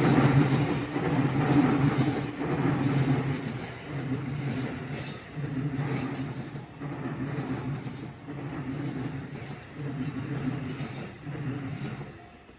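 E231-series electric train running past over a level crossing, its wheels clattering in a rhythm of about once a second. The sound slowly weakens and falls away sharply near the end as the train clears the crossing.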